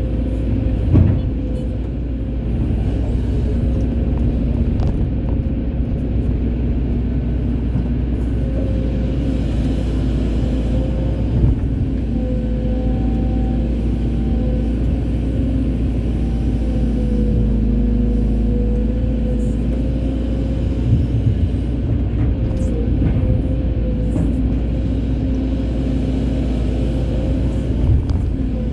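Excavator's diesel engine running steadily under load, with a wavering hydraulic whine and a few knocks from the bucket and boom.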